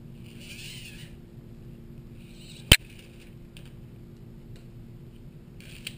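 Handling noise from work on a bicycle twist-shift lever: two short scraping rustles and one sharp click a little under three seconds in, over a steady low hum.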